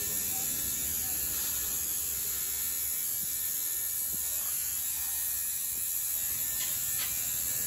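A steady electric buzz from a small motor, with a hiss and a low hum underneath. Two faint clicks come near the end.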